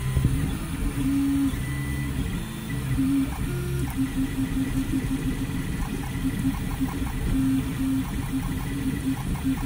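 3D printer running a print: stepper motors whine in short tones that jump in pitch with each move of the print head, over a steady fan hum.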